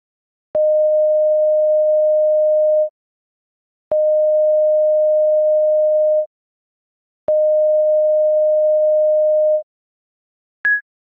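Synthetic terminal beeps: three long, steady mid-pitched tones, each about two seconds with a second's gap between them, then one short, higher blip near the end, signalling an incoming transmission on a communications terminal.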